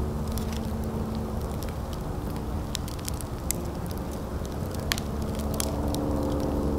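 Wood fire burning, crackling with scattered sharp pops over a steady low rumble.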